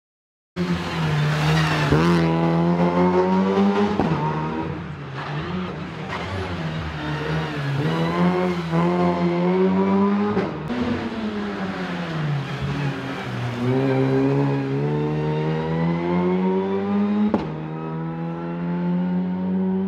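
Opel ADAM rally car engine revving hard, starting abruptly about half a second in; the revs climb and drop again and again through gear changes and lifts. A few sharp cracks cut through it, the loudest near the end.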